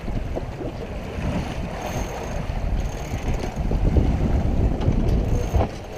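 Wind buffeting the microphone aboard a sailboat under way, with water washing along the hull; the gusts grow louder about two-thirds of the way through.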